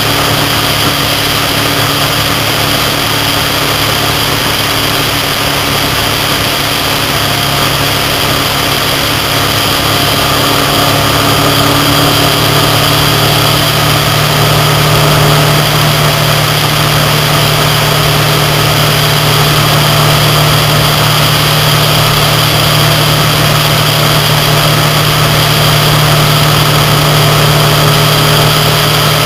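Motorcycle engine running steadily at highway cruising speed under a constant rush of wind and road noise, growing slightly louder about halfway through.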